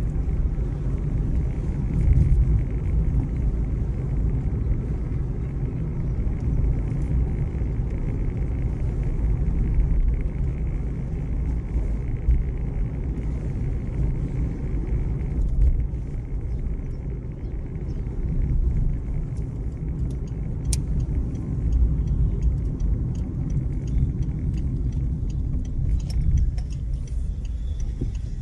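Car driving along a paved road, heard from inside the cabin: a steady low rumble of engine and tyres. Faint light ticks come in near the end.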